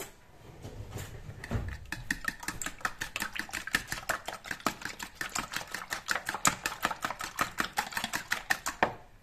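Fork beating raw duck eggs in a plastic bowl: a fast, even run of clicks and liquid slaps, about six strokes a second, starting about a second and a half in and stopping just before the end.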